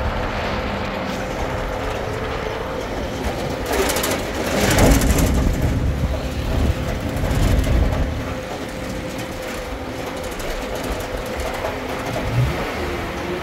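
A vehicle running: a steady rumble with a faint even hum, swelling louder for a few seconds in the middle.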